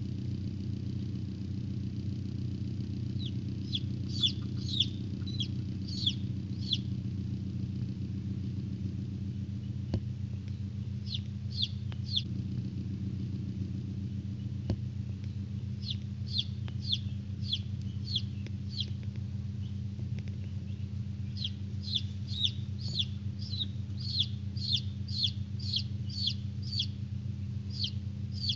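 Newly hatched domestic chicken chicks peeping: short, high, slightly falling peeps in runs of two to three a second, coming in several bouts. A steady low hum runs underneath.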